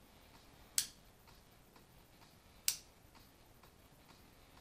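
A hand-operated Sescom A/B switch box being flipped twice, each flip a single sharp click, about two seconds apart, switching the headphone feed between the tube amplifier and the solid-state amplifier. A faint, even tick about twice a second sits beneath.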